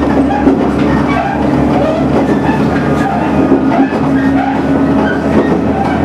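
Running noise inside a KiHa 110 series diesel railcar at speed: the steady drone of its diesel engine over wheels rolling on the rails.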